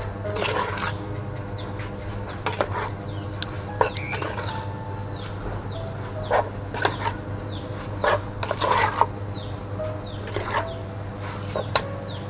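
A spoon knocking and scraping in a clay mortar as pounded green papaya salad is tossed and mixed. The knocks and scrapes come irregularly, about one a second, over a steady low hum.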